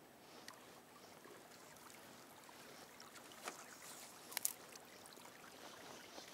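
Faint flowing river water, with a few small sharp clicks: one about three and a half seconds in and a quick cluster, the loudest, about a second later.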